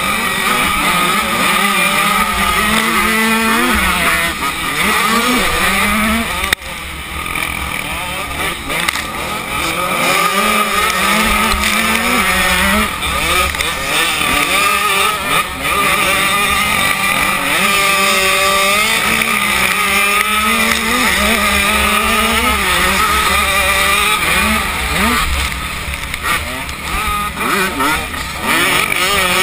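KTM 85 two-stroke motocross bike's engine revving hard and rising and falling in pitch over and over as it is ridden through the gears on a dirt track, with other dirt bikes nearby and wind rushing over the mount. A sharp knock comes about six and a half seconds in.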